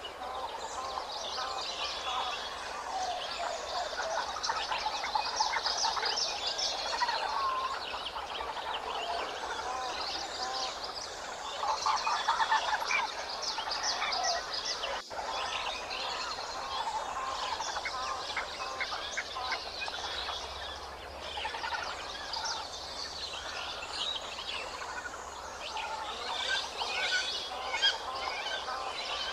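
A chorus of many birds chirping and calling over one another, a dense, continuous mix of short high calls.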